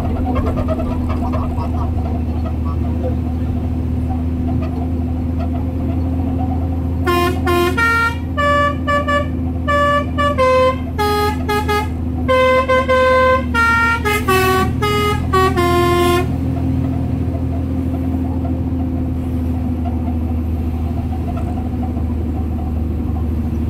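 A musical multi-tone air horn of the Indonesian 'telolet' kind plays a tune of short stepped notes for about nine seconds, starting about seven seconds in. It sounds over the steady drone of a truck engine.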